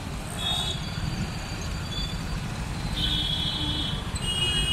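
City road traffic with a steady low rumble, and vehicle horns sounding over it: a short toot just after the start, then longer honks from about three seconds in.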